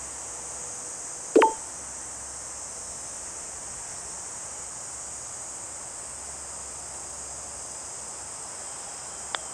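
Steady high-pitched insect chorus. A loud sharp click with a brief ring comes about a second and a half in. A light click near the end is the putter striking the golf ball.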